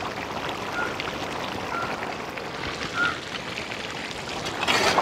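Large pot of chicken curry boiling on a wood fire, a steady bubbling with a few faint short chirps, and a brief louder noise near the end.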